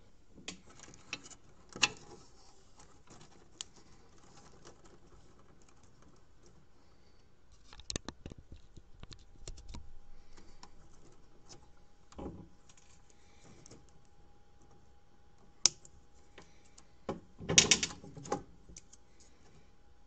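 Scattered clicks and light rattling of plastic Molex-style connector housings and their wires being handled, with a few sharper clicks and the loudest cluster of clicks near the end.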